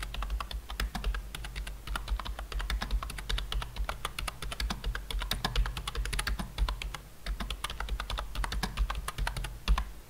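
Fast, continuous typing on a Meetion MT-K841 low-profile chiclet membrane keyboard: a rapid run of key clicks that stops just before the end.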